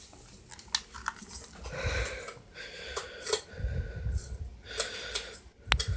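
A chainsaw's starter cord pulled several times in short rasping yanks, with clicks and brief low rumbles, the engine not catching.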